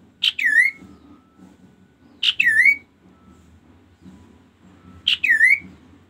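A caged kaso-kaso bird gives three loud whistled calls, two to three seconds apart. Each call swoops sharply down in pitch and turns up again at the end.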